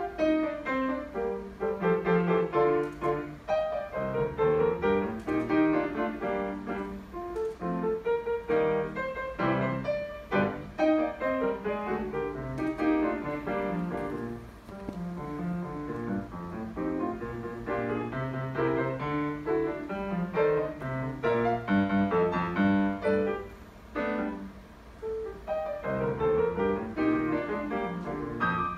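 Solo grand piano playing a classical piece: fast runs and full chords, briefly softer about fourteen seconds in and again about twenty-four seconds in.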